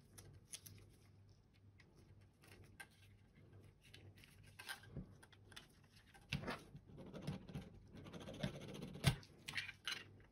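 Faint handling noises of small plastic parts: scattered light clicks and scratching as a glued side panel is pressed onto the plastic shell of a computer mouse, busier in the second half, with one sharper click about nine seconds in.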